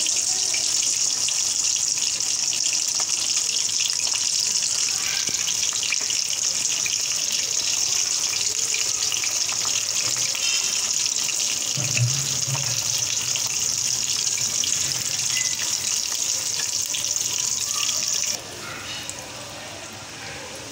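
Chicken spring rolls deep-frying in hot oil in a wok: a steady, loud sizzle, with a low hum for a few seconds midway. Near the end the sizzle drops suddenly to a softer one.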